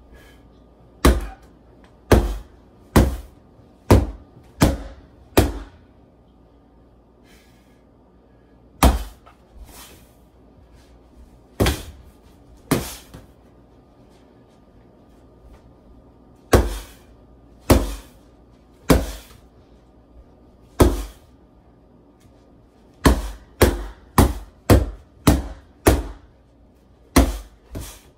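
Wooden Irish fighting stick striking a Century freestanding heavy bag: sharp whacks, each dying away quickly. First a run of six hits about a second apart, then single hits every second or two, and later a faster run of about seven hits in quick succession.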